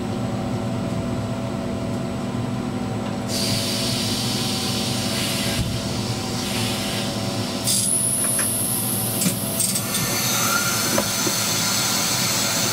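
Inside the cab of a ČD Cargo class 340 electric locomotive rolling slowly: a steady electrical hum with wheel and rail noise. A rushing noise joins about three seconds in, and a high wheel squeal lasts about two seconds in the middle, with clicks as the wheels cross the points.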